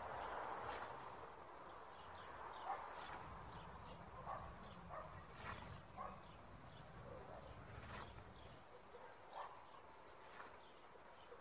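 Faint rural outdoor ambience with a distant dog barking now and then and birds calling.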